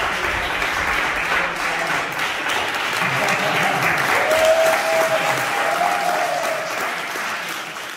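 A small group of people clapping steadily, with a few held cheering calls about four to six seconds in. The clapping fades out near the end.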